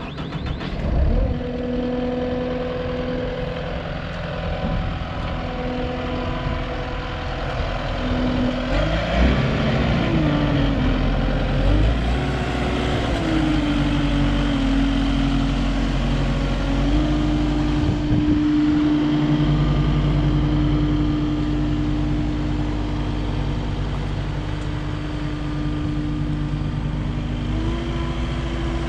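Kubota SSV75 skid steer's four-cylinder diesel engine running. It idles steadily at first, then revs up and down about nine seconds in and settles at a higher steady speed, stepping up once more near the end.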